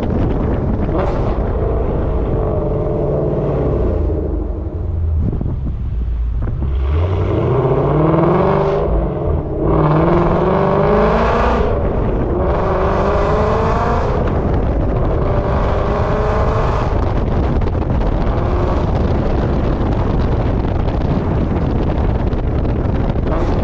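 Ford Coyote 5.0 V8 of a 2016 Mustang GT, with long-tube headers and a Corsa Extreme cat-back exhaust. The engine runs loud and climbs in revs twice about halfway through, then holds steadier.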